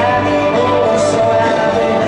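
Live country-rock band music, with a singer holding long notes over the band.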